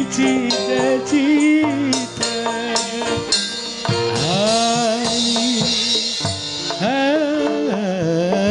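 A sung dangdut-style song with a live gamelan-style ensemble and hand drums (kendang) playing along. The voice holds long notes with slides and ornaments, over a busy drum pattern.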